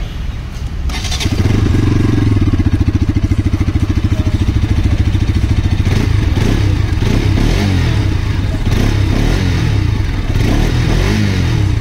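Bajaj Pulsar RS200's single-cylinder, fuel-injected engine running at idle. It becomes much louder about a second in, then holds a steady, fast pulsing beat.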